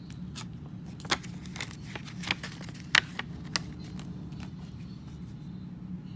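Paper banknotes being counted by hand, bills flicked one after another with short, crisp snaps, about six between one and four seconds in, over a steady low hum.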